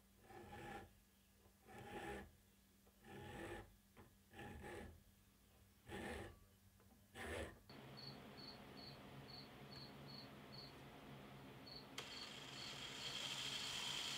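Six slow strokes of a hand file rasping on a small metal part clamped in a vise, one stroke every second or so. After a cut comes a quiet steady hiss, then near the end an electric drill starts with a click and runs, boring into the wooden handle.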